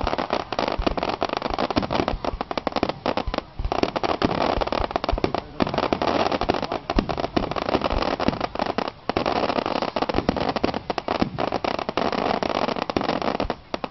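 Aerial fireworks shells bursting overhead, with a dense, continuous crackling of many sharp pops a second from the exploding stars and a few brief lulls.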